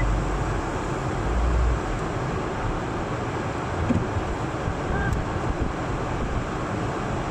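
Wind buffeting the microphone over a steady outdoor vehicle noise, with low rumbling gusts near the start and about a second and a half in.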